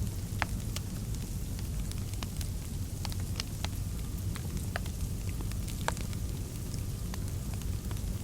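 Wood fire crackling in a fireplace: irregular sharp pops, a few a second, over a steady low rumble.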